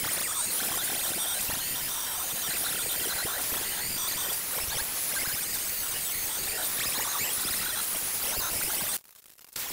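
Electric angle grinder with an abrasive disc grinding down welds on a steel rust-repair patch: a steady high whine over the hiss of the disc on metal. The sound drops out abruptly for about half a second near the end, then carries on.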